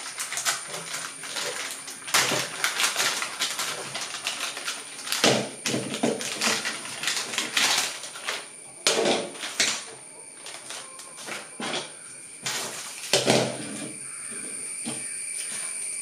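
Clear plastic packaging crinkling and rustling as it is unwrapped by hand, in irregular bouts with louder rustles about five, nine and thirteen seconds in.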